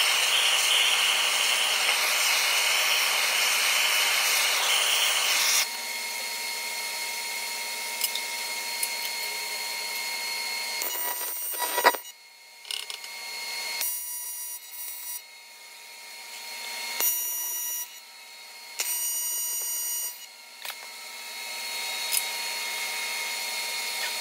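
A handheld gas torch hisses steadily for about five seconds, preheating an aluminum turbo compressor housing. Then an AC TIG welder's arc buzzes in several short bursts of a second or two each, tack-welding the aluminum inducer ring in place, with a steady hum in the gaps.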